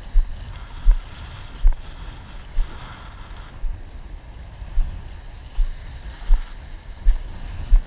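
Wind and sea water buffeting a waterproof action camera riding at the sea surface: repeated low thumps, a little more than one a second, over a wash of small waves.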